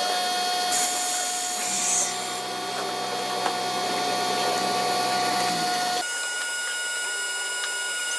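CNC router working wood: a steady high whine from the spindle and drive motors, with a burst of hiss about a second in. About six seconds in the whine changes abruptly to a different set of tones as the machine changes speed or motion.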